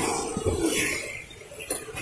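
Wind rush and road noise on a moving motorcycle, loud at first and dropping off about a second in, with a couple of faint clicks near the end.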